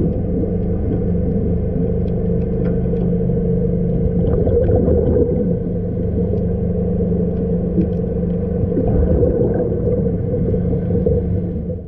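Steady low machinery hum heard underwater, with two even tones held throughout, carried through the water from the ship, with faint scattered clicks on top.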